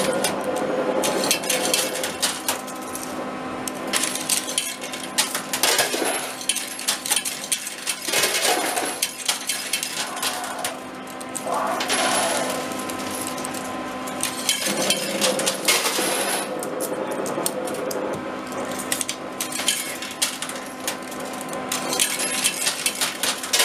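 Coin pusher arcade machine in play: coins dropping onto the pusher tray and clinking against the heaped coins, in many irregular clicks and clatters over a steady hum.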